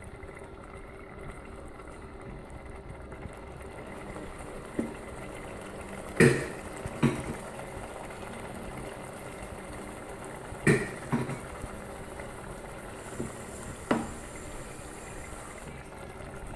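Eggplant and tomato stew simmering in a steel pot, a steady low bubbling, broken by five or six sharp knocks.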